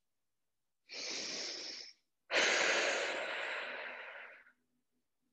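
A woman's deep breathing close to the microphone: a short breath about a second in, then a longer, louder one that fades away.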